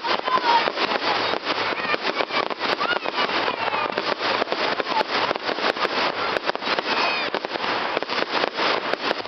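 Fireworks display: a dense, continuous crackle of many small rapid pops, with a few short gliding tones over it.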